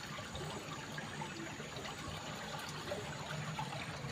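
Stream water flowing steadily through an underground tunnel, a smooth, even rumbling.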